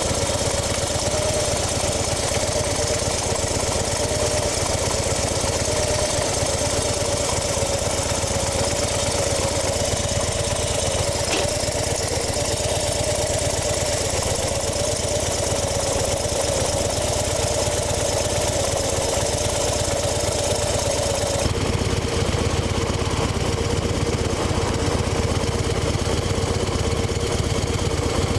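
2010 Harley-Davidson FXD Super Glide's Twin Cam 96 V-twin running steadily at idle, with a wavering whine-grind over the engine's beat. The grinding comes from the primary drive. About three quarters of the way through, the sound changes: the hiss thins and the whining tone settles slightly lower.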